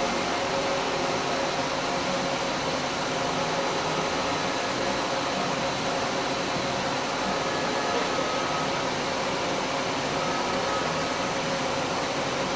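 FEMCO HL-35 slant-bed CNC lathe standing powered up and idle: a steady machine hum with several steady whining tones.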